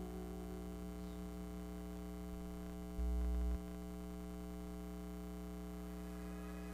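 A steady hum of several held tones, with a brief louder low hum lasting about half a second, about three seconds in.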